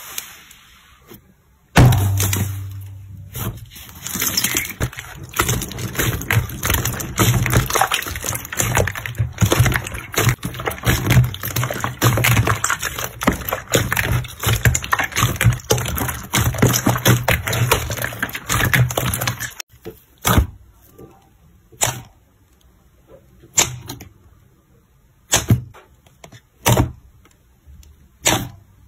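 Slime being pressed and squeezed by hand: a long dense run of crackling, clicking pops, then, about two-thirds of the way in, separate wet pops about every second and a half as fingers push into a thick glossy slime.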